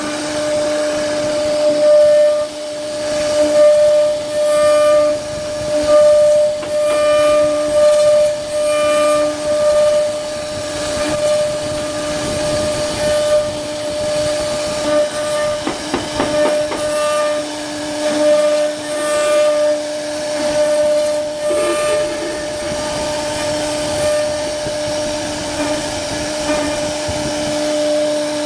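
CNC router spindle running at a steady, high-pitched whine while its bit carves wood, the cutting noise rising and falling as the head moves along the pattern.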